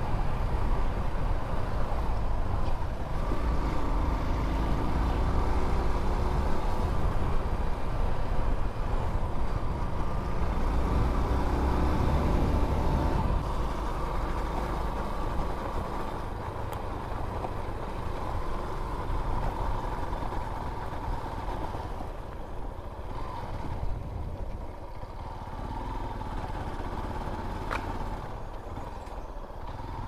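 Motorcycle engine running with wind rumble on the camera microphone during a ride, easing off to a quieter run about halfway through as the bike slows.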